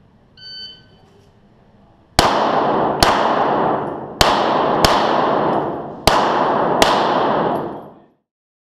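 A shot timer's short electronic start beep, then six Glock 17 9mm pistol shots fired in three quick pairs, the two shots in each pair about 0.7 s apart. Each shot rings with a long echo off the concrete walls of the indoor range.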